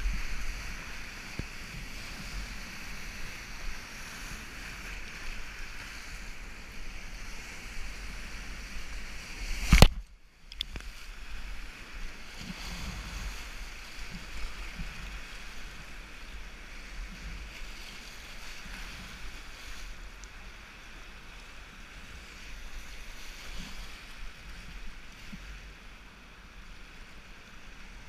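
Whitewater of a big river rapid rushing and churning around a kayak, heard through a GoPro action camera, as a steady wash of water noise. One sudden loud hit about ten seconds in, followed by a brief moment of quiet.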